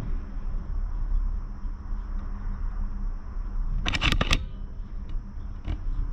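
Steady low rumble of an enclosed gondola cabin riding the cable, with a brief burst of clattering about four seconds in and a couple of lighter clicks near the end.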